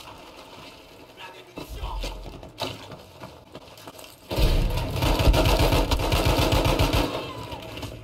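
Airsoft electric rifle firing a long full-auto string of about three seconds, starting about four seconds in: a rapid, even clatter of shots. Quieter shuffling noise comes before it.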